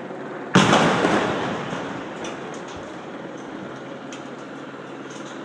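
Shaped demolition charge going off on an amusement-ride tower: one sharp blast about half a second in, its rumble dying away over a second or two.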